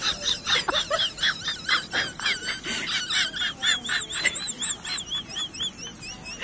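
Rapid, high-pitched chirping: many short notes that rise and fall, about three to four a second, kept up without a break.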